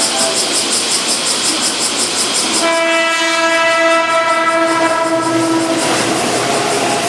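An electric commuter train sounds one long, steady horn blast of about three seconds, starting a little over two seconds in. Train running noise follows it.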